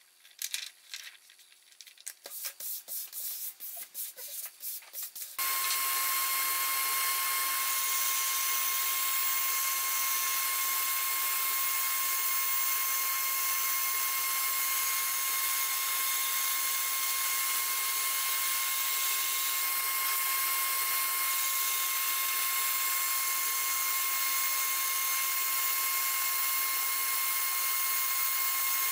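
Paper template sheets rustling for a few seconds, then a Shopsmith bandsaw running steadily as it cuts a template-covered board, with a constant high whine over the machine noise.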